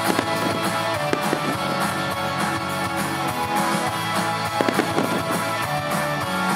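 Music playing loudly while aerial fireworks burst over it: a few sharp bangs, with a cluster of them about four and a half seconds in.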